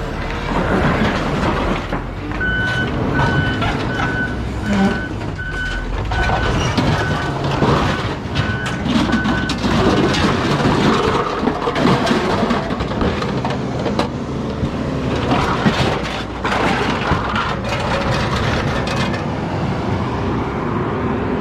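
A vehicle's reverse alarm beeping steadily, about one and a half beeps a second, for several seconds in the first half, over the constant running of heavy machinery and scattered clanks of metal.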